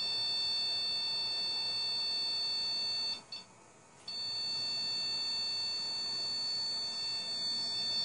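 FlashForge Finder 3D printer sounding its steady, continuous high-pitched levelling beep, which cuts out for about a second around three seconds in and then resumes. During bed levelling this beep signals that the levelling nut has brought the nozzle-to-plate distance into range.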